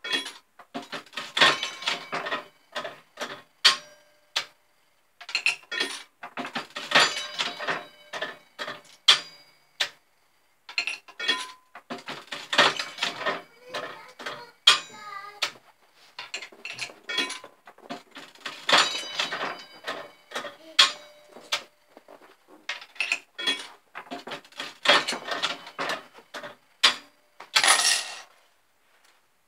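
Aristocrat Arcadian slot machine's coin and reel mechanism clicking and clinking in bursts, about five rapid clusters of metallic clicks a few seconds apart.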